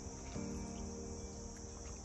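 Steady high-pitched drone of insects, with soft background music of sustained chords that change about a third of a second in.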